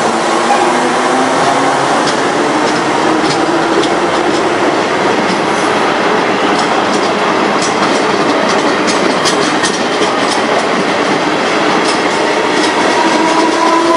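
Stainless-steel São Paulo Metrô train passing close by, a loud steady rush of wheels on rail with a humming tone. Many short clicks come from the wheels over the rail joints through the middle, and the hum grows stronger again near the end.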